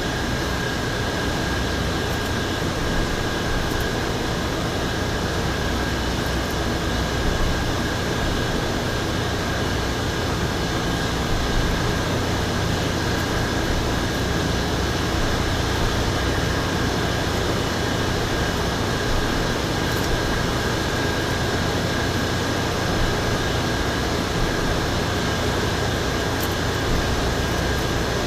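Steady background hum and hiss of a running machine, with a thin high whine held at one pitch.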